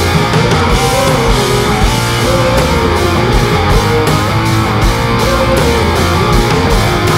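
Rock music: a guitar melody over a steady drum beat.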